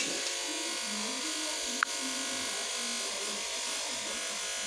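A steady electrical buzzing hum, with faint voices under it and one sharp click about two seconds in.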